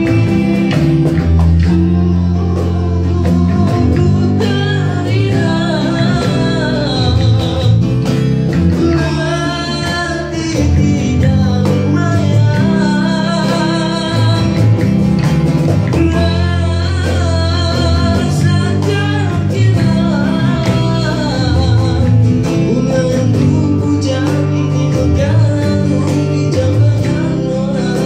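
Live acoustic band music: a male singer singing into a microphone over strummed acoustic guitars, electric bass and cajón.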